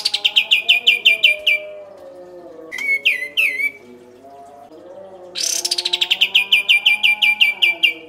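A caged kapas tembak bulbul singing: a fast rolling run of about ten sharp, falling notes, a few short rising notes about three seconds in, then another long rapid run of sharp notes from about five and a half seconds.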